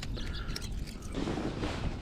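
Wind buffeting the microphone as a steady low rumble, with a brief rush of broader noise starting about a second in.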